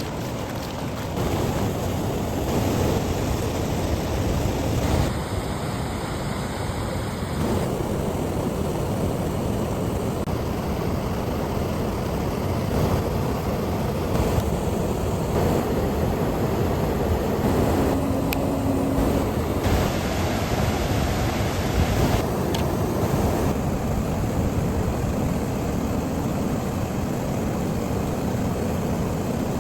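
Steady rushing of a river, a constant noise that shifts in level at several cuts.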